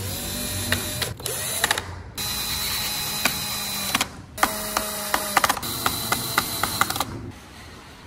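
Handheld drill with a screwdriver bit driving screws into a wooden model-truck chassis, its motor spinning in four runs with short stops between them. Sharp clicks come through the later runs. The drill stops about seven seconds in.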